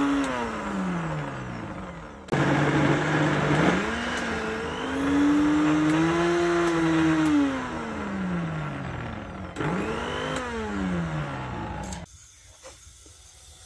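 Electric countertop blender run in three pulses, grinding fried onions, tomatoes, green chillies and garlic with water into a thick paste. With each pulse the motor's whine climbs as it spins up and sinks as it winds down. The motor stops near the end.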